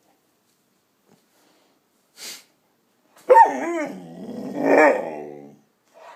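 Five-month-old Cane Corso puppy giving one drawn-out, wavering growling bark lasting about two seconds, starting a little past halfway, after a brief faint noise about two seconds in.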